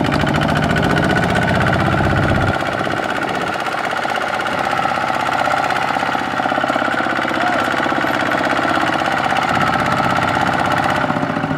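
Kubota ZT155 single-cylinder diesel engine on a two-wheel walking tractor, chugging with a fast, even beat as it hauls a loaded rice trailer through mud. The deep low thump is heavier for the first couple of seconds, lighter through the middle, and builds again near the end.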